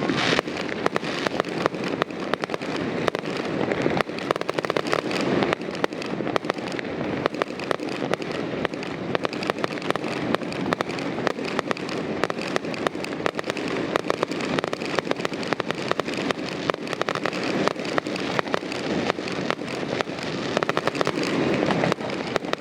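A fireworks display going off continuously: a dense, unbroken stream of rapid bangs and crackles overlapping one another.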